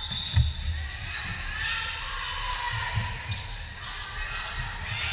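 A volleyball smacked by a jump serve about half a second in, the loudest sound, followed by fainter ball contacts during the rally near the three-second mark, in a large echoing gym with voices of players and spectators around it.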